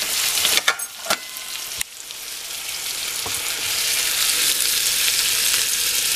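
Ribeye steak and its juices sizzling on the hot plate of a George Foreman electric grill. There are a few sharp clicks in the first two seconds, then the sizzle grows louder and holds steady.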